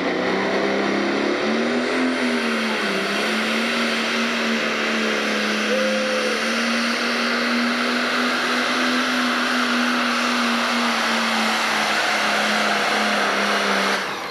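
International 1066 pro stock pulling tractor's turbocharged diesel engine running hard under load as it drags the weight-transfer sled. Its pitch climbs over the first couple of seconds, dips briefly, then holds steady, and the sound cuts off just before the end.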